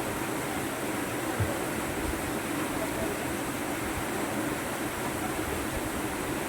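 Steady rush of a waterfall and swift, high river water, with a brief low thump about a second and a half in.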